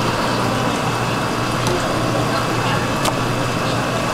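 Fish market background: a steady low hum under a wash of water-like noise, with one sharp click about three seconds in.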